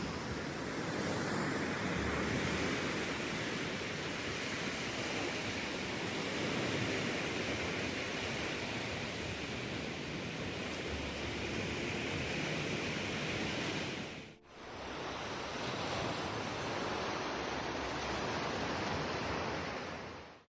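Sea waves washing steadily on the shore. The sound briefly drops out about fourteen seconds in, then carries on.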